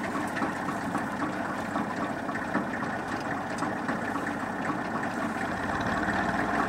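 AGM WC X5G tractor-driven wood chipper running empty at low tractor engine speed, its cutting rotor and flywheel turning steadily after a jammed branch has been cleared. The low end of the sound grows a little stronger near the end.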